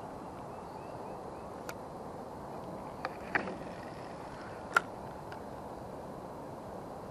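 Spinning reel being handled, giving a few short sharp clicks and taps, the loudest about five seconds in, over a steady background hiss.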